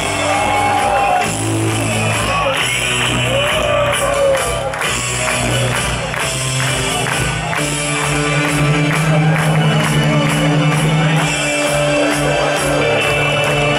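Live punk rock band playing through loud amplified guitars and drums in a concert hall, with voices shouting and singing along over the music. Regular drum beats come in about five seconds in.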